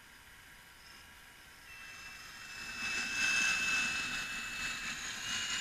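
Radio-controlled scale model Liebherr L576 wheel loader driving past, its electric drive giving a steady high whine with a hiss that grows louder about three seconds in as it comes close.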